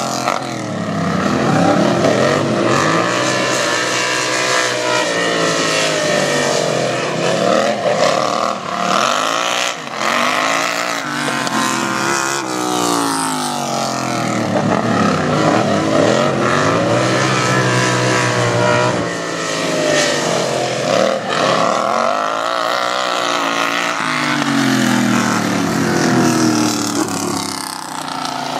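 Racing lawn mowers' small engines revving hard, two or more at once. Their pitch rises and falls over and over as they speed up on the straights and lift through the corners.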